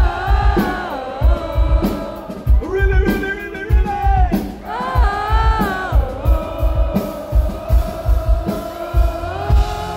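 Loud live rock band through festival PA heard from the crowd: sung vocals over a steady drum beat and guitars, with one long held note in the second half.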